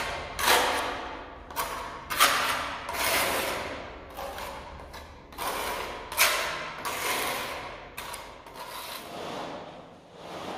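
Small steel trowel scraping and smoothing cement mortar along the top edge of ceramic skirting tiles against a concrete wall, in a run of irregular strokes about one a second.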